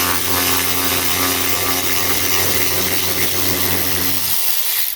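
DeWalt 12V cordless ratchet running steadily as it turns a large fastener, stopping near the end.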